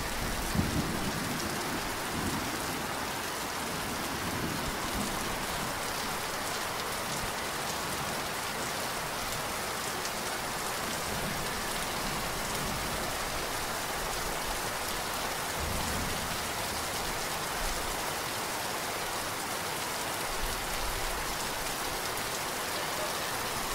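Heavy tropical rain falling steadily in a dense, even hiss. A thunderclap's low rumble dies away in the first second, and a softer low rumble comes about two-thirds of the way through.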